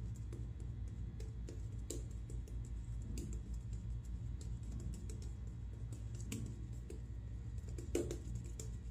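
Shaving brush working lather over the face and neck: a run of soft crackles and small clicks from the bristles and foam, with one sharper tap near the end, over a low steady hum.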